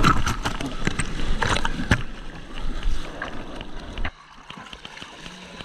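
Sea water splashing and sloshing against a bodyboard and the camera at water level as the rider paddles, with sharp splash hits in the first two seconds; the sound drops abruptly quieter about four seconds in.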